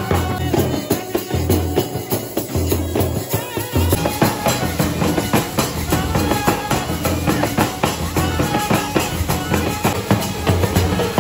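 Music with a steady drum beat and deep bass, changing in texture about four seconds in.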